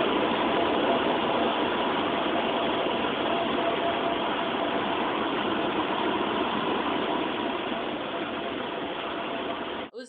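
Engine and propeller noise of a small single-engine plane heard inside the cabin through a cell phone's microphone during landing: a loud, steady, noisy drone with a faint hum that eases slightly toward the end, then cuts off abruptly just before the end.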